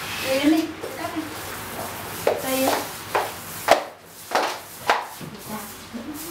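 A series of about six sharp knocks over a few seconds, with short snatches of voices between them.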